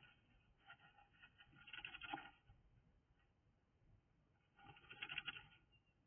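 Faint scratching and rustling in two short bursts, about a second in and again near five seconds: a bird shifting and arranging nesting material.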